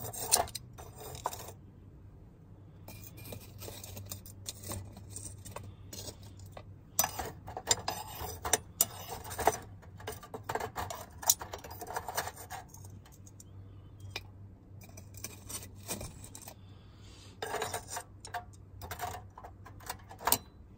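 Burning charcoal in a small stainless-steel tabletop grill, giving irregular sharp clicks and light metallic ticks in scattered clusters, over a low steady hum.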